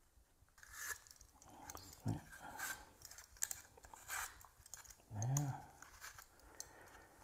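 Hand peeler scraping the skin off an apple in short, soft strokes, with apple peelings rustling on a plastic chopping board.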